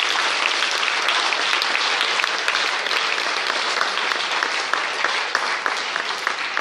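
Crowd of spectators applauding, with dense clapping that starts to thin out into more separate claps near the end.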